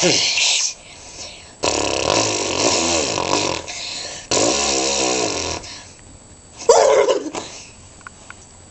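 A person making weird throat and mouth noises: a short falling squeal, two long raspy noises with a wobbling pitch, lasting about two and a half and one and a half seconds, then another short falling squeal near the end.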